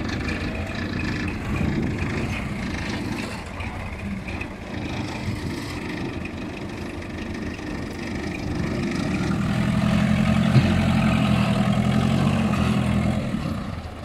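Engines of a Case 580D backhoe and a sunken forklift running as the backhoe pulls the forklift out on a tow rope. From about nine seconds in, an engine runs louder and steadier under load.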